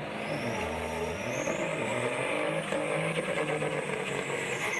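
Diesel semi-truck engine running hard while the rear tyres spin in a burnout. A high whine rises over the first couple of seconds and then holds.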